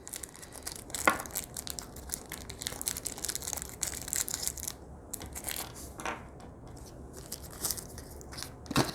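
Packaging crinkling and rustling as it is handled, with dense irregular crackles and clicks and a sharper snap about a second in and near the end.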